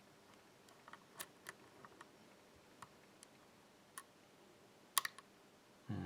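Small metallic clicks of a lock pick working the pins of a pin-tumbler challenge lock, scattered and irregular, with a louder double click about five seconds in.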